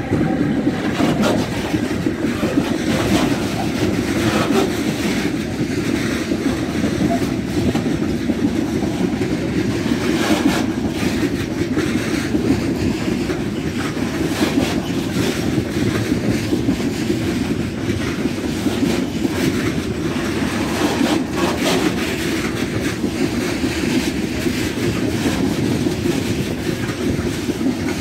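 Freight train of loaded log wagons rolling past, with a steady low rumble and irregular clacks of the wheels over rail joints.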